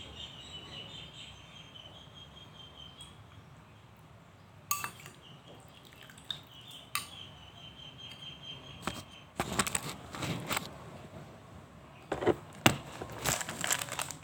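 Eating and table-handling sounds: a spoon or utensil clinking against a dish, with a few sharp clicks and then a stretch of busy clattering and crinkling from about two-thirds of the way in. Birds chirp faintly in the background during the first half.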